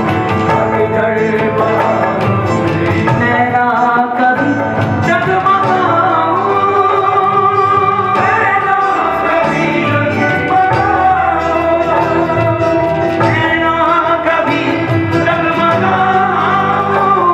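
Live Hindi devotional song (bhajan): a male lead voice sung with a group of backing singers over instrumental accompaniment, running continuously.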